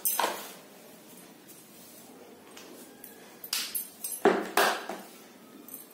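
Several short knocks and clinks over quiet room tone, the loudest two close together about four seconds in.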